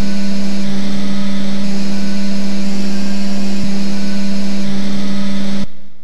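Harsh noise music: a loud, dense wall of distorted noise over a steady low drone, its texture shifting a few times, then cutting off abruptly near the end and leaving a short fading tail.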